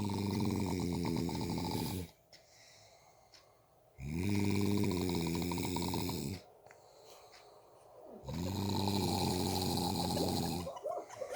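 A man snoring: three long, buzzing snores of about two and a half seconds each, roughly four seconds apart, with quiet breaths between.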